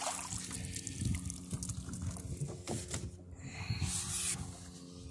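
Water splashing and trickling against a small sailboat's hull, with dripping and small knocks.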